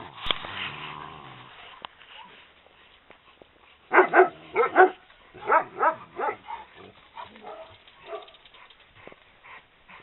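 Maremmano-Abruzzese sheepdog puppies barking in quick yaps: a cluster of about four loud yaps about four seconds in, another cluster a second later, then scattered fainter yaps. A short low rumbling sound comes in the first second or so.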